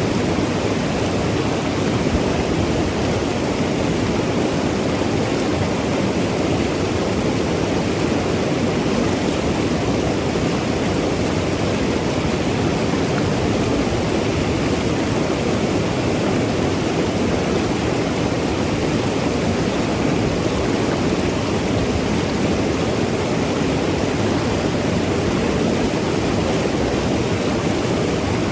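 Mountain river flowing and tumbling over rocks: a steady, full rushing of water, strongest in the lower range.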